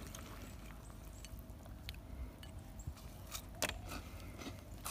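Faint light clicks and rustling from a gloved hand stirring cereal pieces in a bowl of milk, with one louder click about three and a half seconds in.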